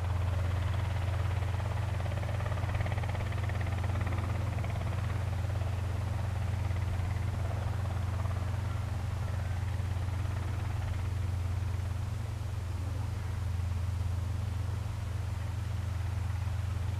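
Robinson R22 Beta helicopter running steadily near the ground, its rotor and four-cylinder Lycoming piston engine making an even low drone.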